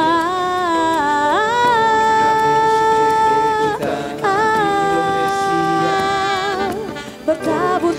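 Live band music: a slow melody in long held notes, sliding up into a note about a second and a half in and held for a couple of seconds, then another long held note.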